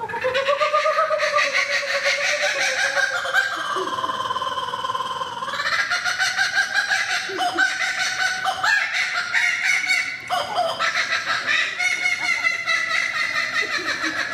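Laughing kookaburra giving its laughing call: a long, unbroken run of rapid, rhythmic chuckling notes that swoop up and down in pitch.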